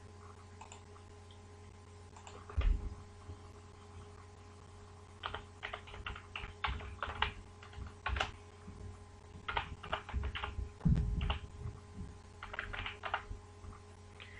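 Typing on a computer keyboard: irregular bursts of key clicks, starting a few seconds in, over a faint steady hum.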